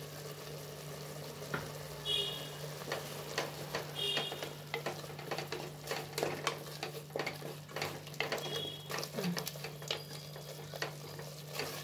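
Wooden spatula stirring and scraping thick tomato masala as it fries in an aluminium pressure-cooker pot: a light sizzle with frequent irregular knocks and scrapes of the spatula against the pot, over a steady low hum.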